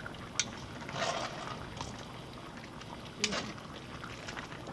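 Chicken in hot sauce simmering and bubbling in a cast iron Dutch oven with its lid lifted, a steady sizzling hiss. Two sharp metal clinks from tongs on the pot, one just after the start and one about three seconds in.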